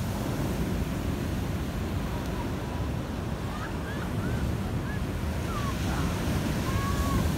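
Black Sea storm surf: big waves breaking and washing up a pebble beach, a steady heavy rumble of water.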